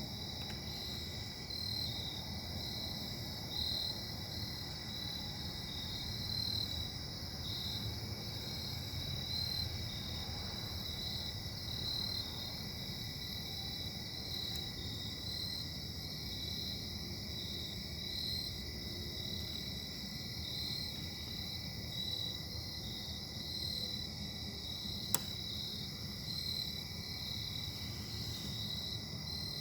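Distant industrial engine running steadily: a low rumble with steady high-pitched whining tones over it, which the uploader puts down to bad bearings. A single sharp click sounds about 25 seconds in.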